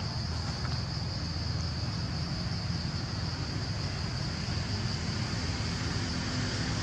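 Steady high-pitched drone of a forest insect chorus, unbroken throughout, over a low rumble.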